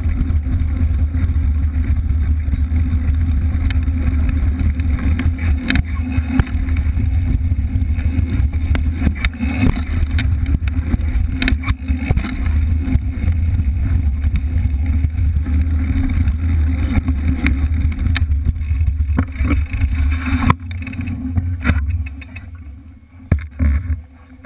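Heavy low rumble of wind buffeting and tire noise on a camera mounted by a mountain bike's rear knobby tire as it rolls along a dirt track, with scattered clicks and rattles. The rumble drops away near the end, leaving intermittent clicks and crackles.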